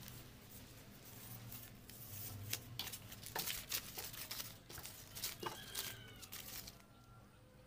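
Sheets of sandpaper rustling and crackling as they are handled and lifted off a wooden board, with many short papery clicks that stop shortly before the end.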